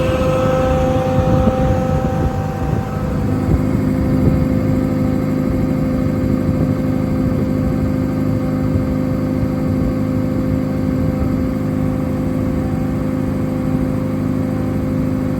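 Quincy hydraulic-driven air compressor on a service truck running along with the truck's engine: a steady mechanical drone with a steady whine over it. The tone shifts about three seconds in.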